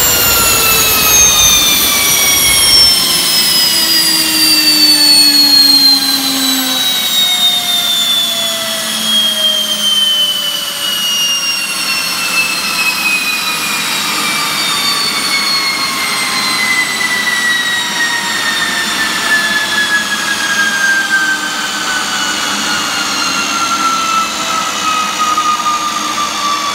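Airesearch Garrett GTP 70-50 gas turbine spooling down after shutdown: its high whine falls steadily in pitch as the rotor coasts down. The low rumble under it stops about three seconds in.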